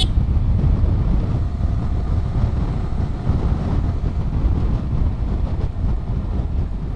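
Steady wind rumble on the microphone while riding a Yamaha R15M motorcycle, with the bike running underneath.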